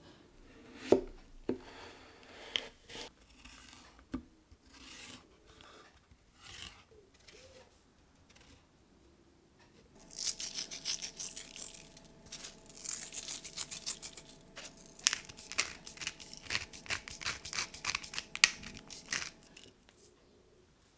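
Kitchen knife cutting through a courgette on a wooden chopping board, with a few sharp knocks of the blade on the board. About ten seconds in, a dense run of rapid crisp clicks and scraping begins and lasts about nine seconds.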